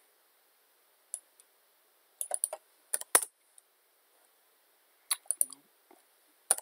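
Computer keyboard keystrokes and clicks, scattered in a few short clusters about two, three and five seconds in, with quiet gaps between.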